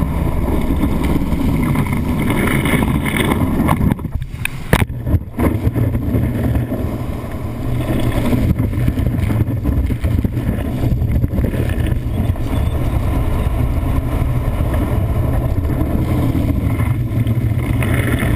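Water rushing and spraying under a wakeboard, heard from a camera mounted on the board at the water's surface, with a steady low rumble and wind on the microphone. About four seconds in the rush breaks off briefly and a few sharp smacks of board on water follow.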